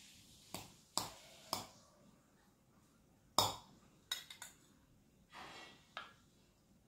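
Metal spoon clinking against stainless steel bowls while stirring food: a scattering of sharp taps, the loudest about three and a half seconds in.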